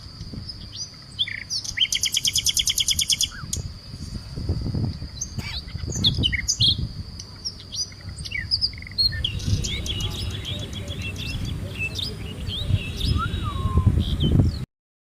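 Several small birds chirping and whistling, with a fast trill of rapid repeated notes about two seconds in and a thin steady high tone underneath for most of the time. The sound cuts off suddenly near the end.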